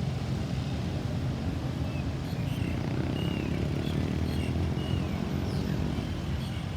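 Steady low rumble of vehicle traffic and engines, with a few faint short high chirps; no siren is sounding.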